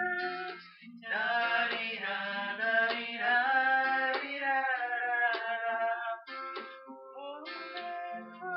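Acoustic guitar played with men singing along, with a brief break in the singing about a second in.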